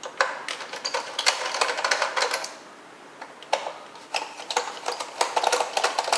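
Screwdriver undoing the Phillips screws of an iRobot Roomba's bottom faceplate, with rapid clicking in two runs and a short pause between them.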